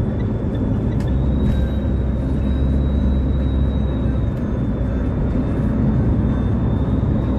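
Road noise of a moving car heard from inside: a steady deep rumble of tyres and engine, with a faint steady high whine over it.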